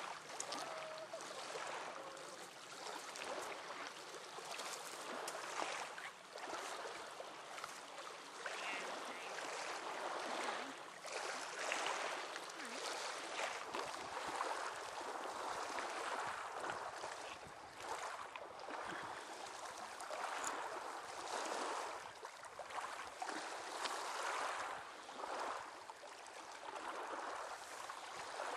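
Surf washing onto a pebbly beach: a steady rushing that swells and eases every few seconds.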